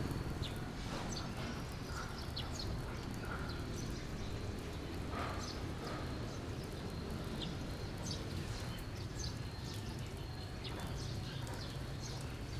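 Outdoor ambience: a steady high insect drone with scattered short bird chirps over a constant low background rumble.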